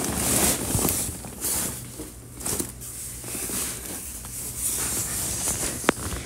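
Rustling handling noise from a phone held close to the face, in uneven hissy waves, with one sharp click near the end.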